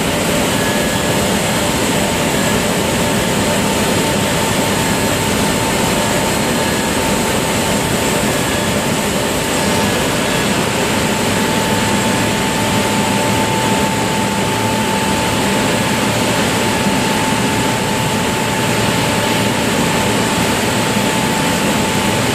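Aluminium melting furnace's vortex charge-well machinery running: a steady, loud roar with a constant high whine over it, as briquetted aluminium chips are drawn into the molten metal.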